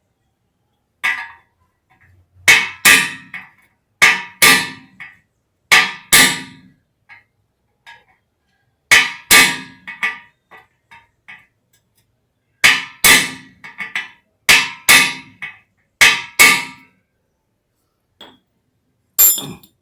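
Sharp metallic hammer blows on a car spark plug wrench used as a drift, tapping a needle bearing into a motorcycle swingarm pivot. The strikes mostly come in quick pairs with pauses between, each with a short ringing clang.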